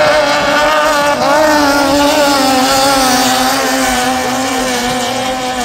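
Engines of two racing longtail boats running flat out at high revs in a loud, steady whine. The pitch dips briefly about a second in, then slowly falls as the boats pull away.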